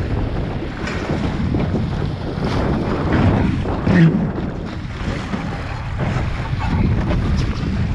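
Wind buffeting the microphone over water rushing and splashing along the hull of a Scow Moth sailing dinghy in choppy water. There is a louder splash about four seconds in, as the bow throws up spray off a wave.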